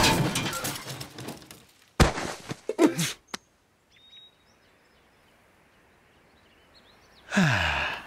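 Cartoon sound effects: a loud thunk that fades out over a couple of seconds, then a few more short knocks. After a quiet stretch with a few faint bird chirps, a loud sound with a quickly falling pitch comes in near the end.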